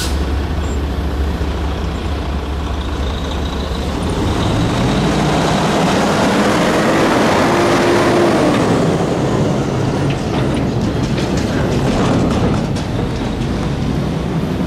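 A GE ES44DC diesel-electric locomotive's engine runs as the train approaches, growing louder until the locomotive passes close by about halfway through. Then a string of ethanol tank cars rolls past, with their wheels clicking over rail joints.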